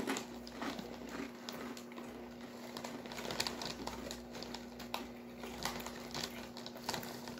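Irregular small crunches and crinkles from eating Takis Fuego Wavy corn chips: chips crunching as they are chewed and the foil snack bag rustling, over a faint steady hum.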